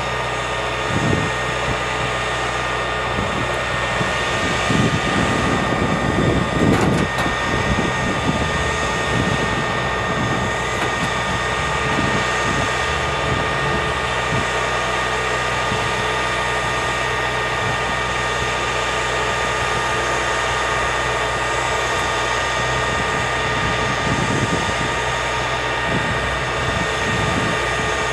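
Armored bridge-launcher vehicle's engine running steadily with a constant high whine, as its launcher lowers the unfolded scissor bridge. Low rumbles and knocks come and go, strongest about five to seven seconds in.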